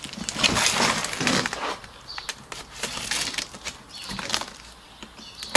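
Cardboard shipping carton being cut open and its flaps pulled back: a long scraping rustle of cardboard and packing tape about half a second in, then shorter rustles and knocks of the flaps.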